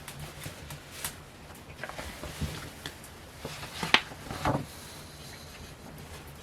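Paper sheet-music booklets being handled: soft rustling with scattered light taps and clicks, the sharpest about four seconds in, followed by a short rustle.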